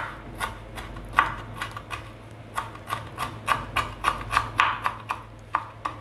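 Kitchen knife mincing julienned ginger on a wooden chopping board: a quick, uneven run of blade knocks on the wood, several a second.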